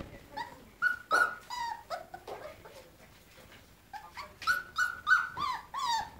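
Weimaraner puppies whining: a string of short, high-pitched whines, each rising and falling in pitch. After a lull of about a second and a half midway, the whines come faster, about three a second near the end.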